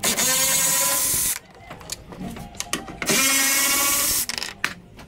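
A power drill or driver running in two steady bursts of just over a second each, a pause of about two seconds between them, while a part is being unfastened to come off.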